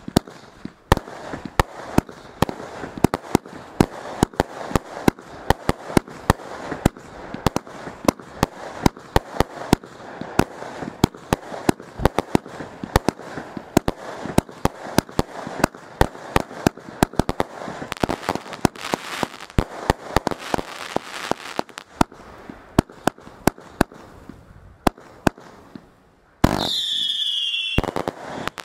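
Vulcan 'Compound X' fireworks compound firing: a rapid run of shots and star bursts, a few each second, over steady crackling. Near the end a sudden louder stretch carries gliding whistles.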